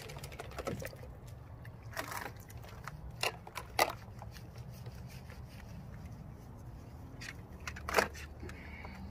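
Wet hands rubbing shampoo into a small dog's coat as it stands in shallow water in a plastic kiddie pool, with scattered small splashes and squelches. A few sharper splashes or knocks come through, the loudest near the end as the dog moves about.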